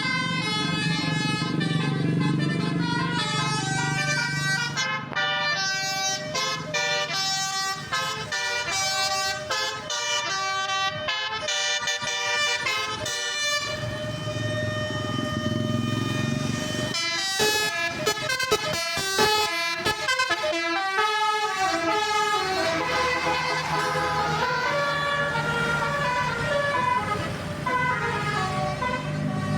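Indonesian tour bus's Basuri 'telolet' musical horn playing a melody of quickly changing multi-tone notes, faster in the middle and slower near the end, with the bus's engine running low underneath.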